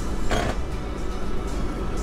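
Steady low rumble of an off-road SUV crawling along a rough gravel shelf road, heard from inside the cabin, under background music. A short burst of noise comes about half a second in.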